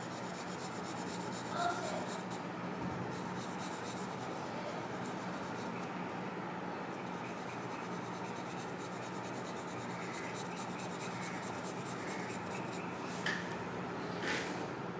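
Pencil lead rubbing and scratching on paper in quick shading strokes, over a faint steady hum. A couple of short sharp ticks come near the end.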